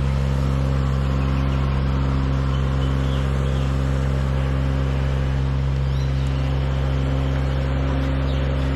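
Compact aerial lift's engine running steadily at a constant speed.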